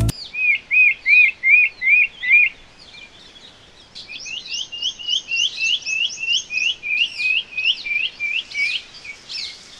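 Sri Lanka woodshrike calling: a run of about seven short, clear whistled notes at roughly three a second, then after a pause a longer, quicker and fainter series of notes at about four a second.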